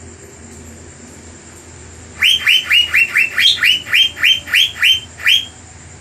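Asian fairy-bluebird (cucak biru) calling in full voice: a fast run of about a dozen sharp notes, each sliding down in pitch, about four a second. The run starts about two seconds in and lasts about three seconds, over a steady low hum.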